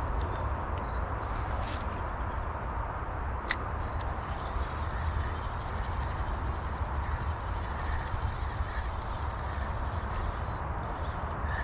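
Steady wind noise buffeting the microphone on an open riverbank, with short high chirps from small birds now and then and a single sharp click about three and a half seconds in.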